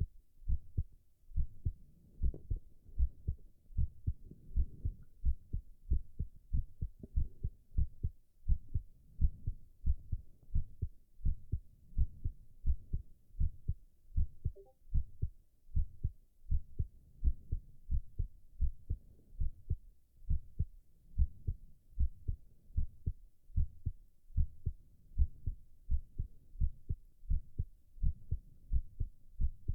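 A man's heartbeat: short, low thuds in a steady, even rhythm.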